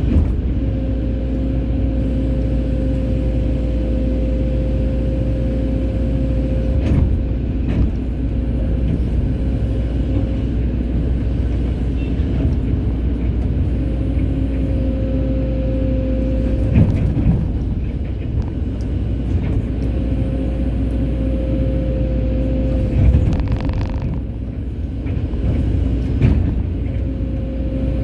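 Excavator's diesel engine running steadily under load, with a high whine that comes and goes as the hydraulics work the arm, and a few knocks of the bucket.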